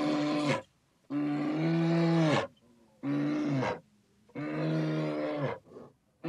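An animal calling over and over in long, steady-pitched cries, each lasting about a second with a slight drop in pitch at its end and short gaps between them.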